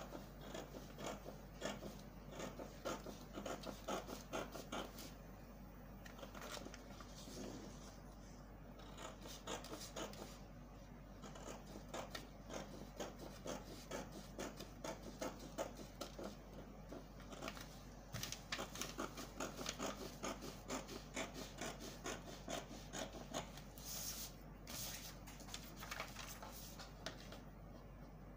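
Pattern paper being cut with scissors and handled: irregular snips, scrapes and rustling as the drafted sleeve is slashed along a line and a piece taken out.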